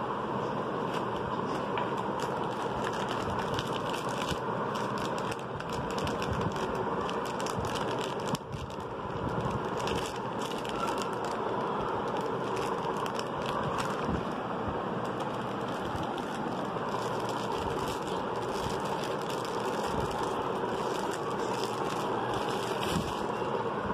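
Crinkling and rustling of a clear plastic watch sleeve and cardboard gift boxes being handled and opened, many small crackles over a steady background noise.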